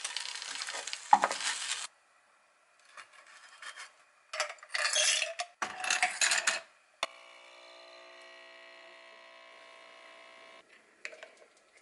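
Toast lifted out of a frying pan with chopsticks and a wooden spatula, over a sizzle and a sharp utensil clack about a second in. Then ice cubes clatter into a glass in two bursts, and a capsule coffee machine's pump hums steadily for about three and a half seconds as it brews coffee over the ice, then stops.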